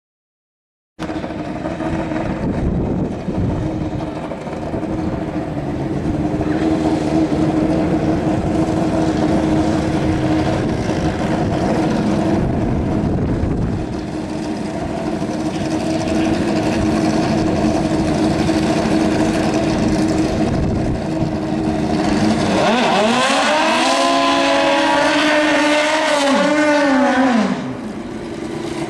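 Drag-racing motorcycle engines running at the starting line. Near the end, one engine revs up sharply, is held at high revs for about four seconds, then drops off.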